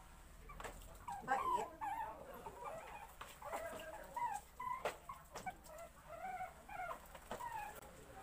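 Shih Tzu puppies whimpering: a string of short, high cries, each rising and falling, with a few sharp clicks among them.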